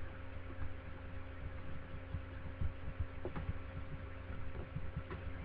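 A steady low hum with soft, irregular low thumps throughout.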